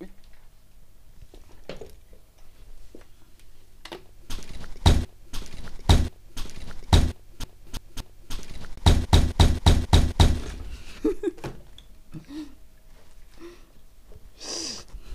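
Irregular sharp knocks and thuds, then a quick run of about seven knocks in a second and a half, as a folding bicycle and a bathroom scale are handled.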